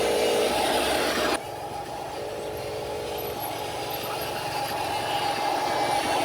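Radio-controlled model truck running, its small electric motor and gearbox giving a steady whine. The sound drops abruptly about a second and a half in, then slowly grows louder again.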